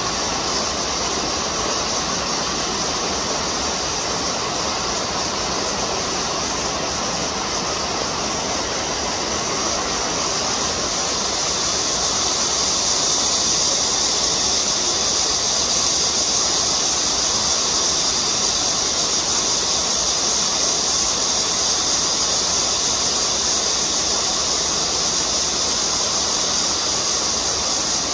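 Steady rush of running stream water, with a high, even hiss over it that grows louder about twelve seconds in.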